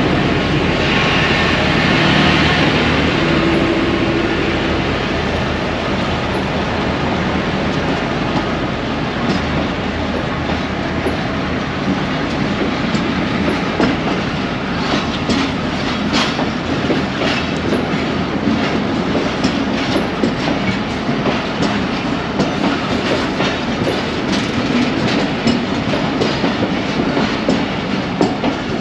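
Passenger coaches of a departing train rolling slowly past, with a steady rumble of wheels on rails. The power van passes with a hum in the first few seconds, and from about ten seconds in the wheels click more and more sharply over the rail joints.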